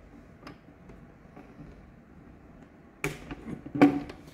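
Plastic handling knocks and rattles as the Magnum X5 airless paint sprayer's prime tube is pushed through the hole in a plastic bucket lid. There are a couple of faint clicks first, then a cluster of sharp knocks about three seconds in, the loudest a little before the end.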